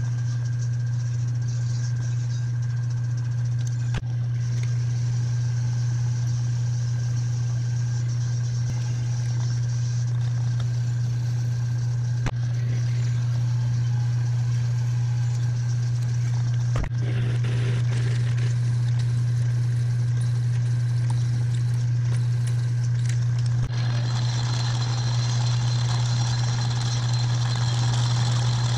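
Metal lathe running with a four-jaw chuck spinning: a steady, loud motor hum with a high whine, as a twist drill in the tailstock bores into the workpiece. From about three-quarters of the way in the sound turns brighter and harsher as a turning tool cuts the metal, with a few short clicks scattered through.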